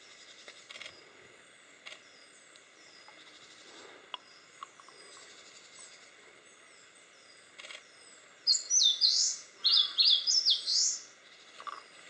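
Eastern crowned warbler singing: a loud phrase of quick, high notes that rise and fall, about two and a half seconds long and starting about eight and a half seconds in. Faint bird chirps come before it.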